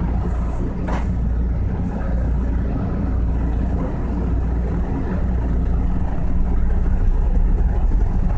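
SEPTA Market-Frankford Line subway car running, heard from inside the car: a steady low rumble, with a sharp knock about a second in. It grows louder from about six seconds in as the train picks up speed after leaving the station.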